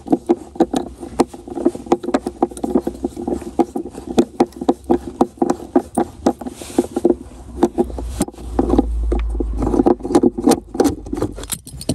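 Phillips screwdriver undoing the screw of a metal tie-down eye in a car's boot floor: a quick run of sharp clicks, several a second, with a low rumble of handling for a couple of seconds near the end.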